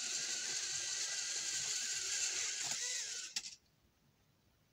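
Small toy drone's electric motors whirring steadily with a faint whine, then cutting off with a click about three and a half seconds in.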